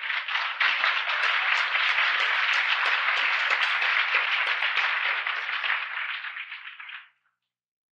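Audience applauding. It dies down and cuts off to silence about seven seconds in.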